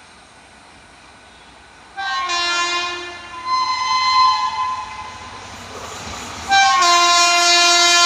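WAP-5 electric locomotive's multi-tone horn sounding twice: a blast about two seconds in whose chord shifts partway through, then a second loud blast from about six and a half seconds in that is still sounding at the end.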